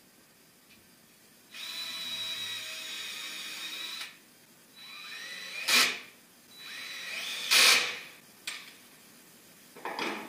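DeWalt cordless drill/driver driving screws: three runs of its motor whine, the first about two and a half seconds long, the next two shorter and each ending in a short, loud noise. A few knocks near the end as parts are handled.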